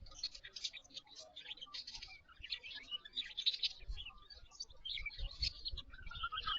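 White-rumped shama singing: a dense, unbroken run of short, high chirps and whistles, with a lower run of notes joining in near the end.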